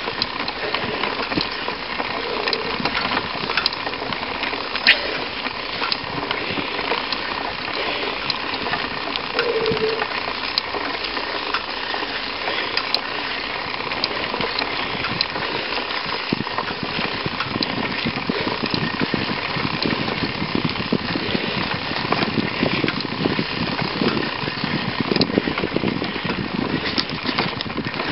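Mountain bike riding a dirt forest trail, heard through a camera mounted on the front suspension fork: steady crackling tyre noise and rattle from the ground, with a few sharp clicks. The rattle turns heavier and lower about halfway through.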